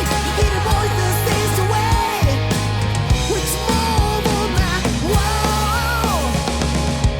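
Rock music from a full band, with a steady heavy low end under a lead melody that slides and bends in pitch. No lyrics are sung in this stretch.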